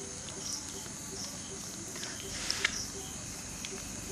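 Crickets and other night insects calling steadily, with regular high chirps and a lower pulse repeating a few times a second. About two and a half seconds in there is a short rustle with two quick clicks, as hands work the chicken on the steel plate.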